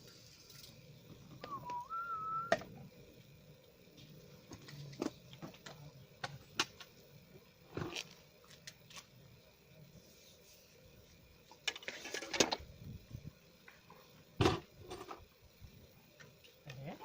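A single short whistled note about two seconds in that dips and then rises to a steady pitch, among scattered light clicks and knocks.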